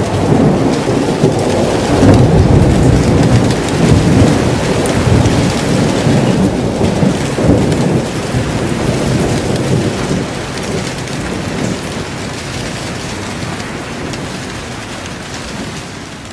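Thunderstorm: steady rain with rolling thunder, the deep rumble strongest in the first half and gradually dying away toward the end.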